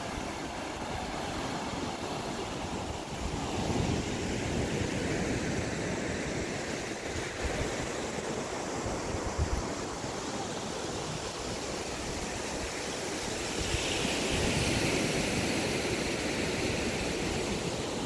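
Ocean surf washing onto a sandy beach: a steady rushing noise that swells louder about four seconds in and again near the end.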